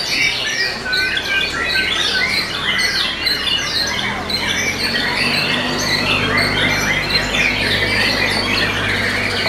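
White-rumped shamas (murai batu) in full song: a dense, unbroken stream of quick whistles, trills, chatters and harsh squawks, with several birds' phrases overlapping.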